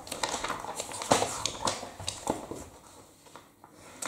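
Irregular rustling and clicking of objects being handled, fading out near the end.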